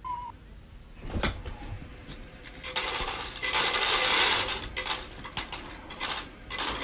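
A single knock, then a run of rapid, irregular clattering and rattling of hard objects, busiest in the middle.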